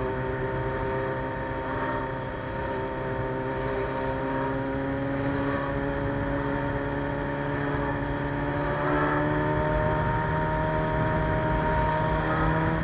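Suzuki Bandit 600's carbureted inline-four engine running through a straight-pipe exhaust at a fairly steady road speed. Its pitch eases slowly down, then shifts about nine seconds in.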